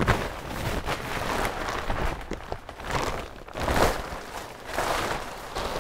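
Irregular rustling and crinkling of a plastic vapour-brake membrane being handled and laid over a roof beam, with a few short knocks.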